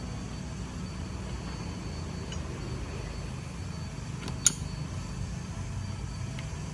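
Steady low hum with a faint high whine, broken by one sharp metallic click about four and a half seconds in and a couple of faint ticks.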